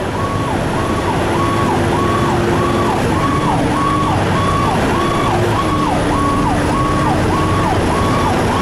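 Fire engine's siren sweeping up and down in quick cycles, about three every two seconds, heard from inside the cab over steady engine and road noise.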